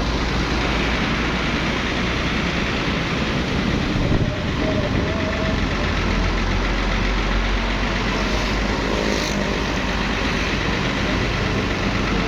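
Vehicle engines running in slow, jammed traffic: a steady, deep engine rumble with road noise.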